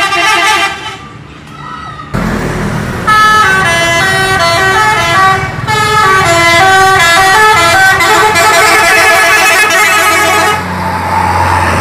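Multi-tone musical bus horns (Indonesian 'telolet' horns) playing. A held horn chord sounds at the start, then from about three seconds in comes a quick run of changing notes like a tune, over engine noise. Near the end a steady low engine drone takes over.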